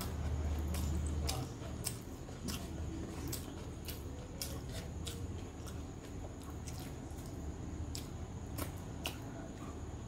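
Fingers kneading and mixing basmati rice with chicken curry on a plate: wet squishing with irregular sharp, sticky clicks. A low hum sits underneath in roughly the first second and a half.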